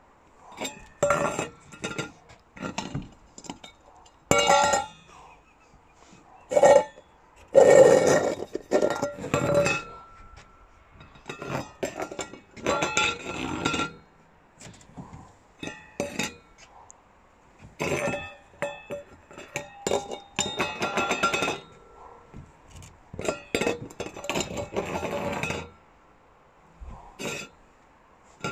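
Stainless steel feeding bowl clinking, scraping and ringing as a rabbit shoves and knocks it about with its nose, in irregular bursts of clatter with short pauses. The loudest clatter comes about a third of the way through.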